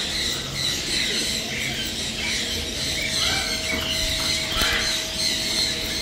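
Many caged birds chirping and calling together, with a steady hum underneath; a thin steady tone joins about halfway through.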